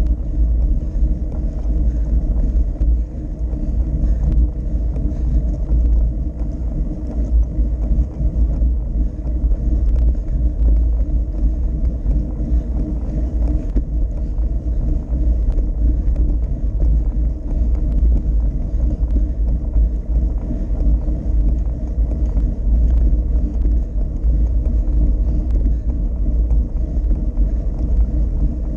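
Steady low rumble of wind buffeting and road noise on the microphone of a bike-mounted camera as a road bike rolls along asphalt.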